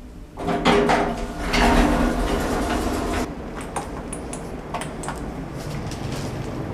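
Lift doors sliding with a loud rattling clatter that starts about half a second in and eases after about three seconds, followed by a lower rumble and scattered sharp clicks.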